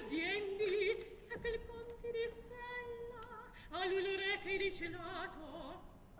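Operatic soprano singing short phrases with wide vibrato over a quiet orchestra.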